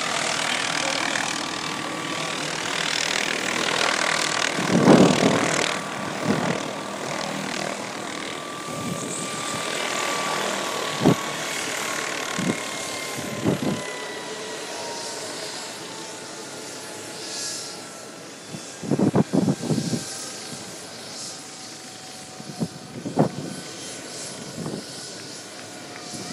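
A helicopter comes in and lands, its rotor and engine noise easing off as it settles on the pad, with a thin whine that slowly falls in pitch. Several short thumps break in along the way.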